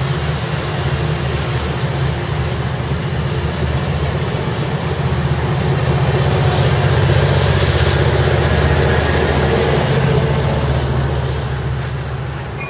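Amtrak Pacific Surfliner bilevel passenger cars rolling past close by, followed by the trailing F59PHI diesel locomotive pushing the train out of the station, its engine running under power with a deep, steady drone. It is loudest as the locomotive passes, about halfway through, and fades toward the end.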